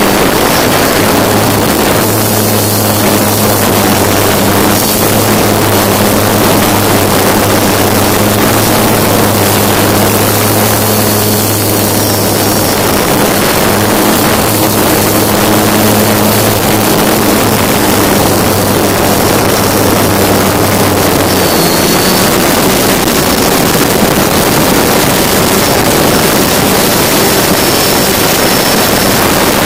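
S550 hexacopter's six motors and propellers running steadily, heard loud and close from the onboard camera, with a dense rushing noise over them. A low hum under the noise drops away about two-thirds of the way through.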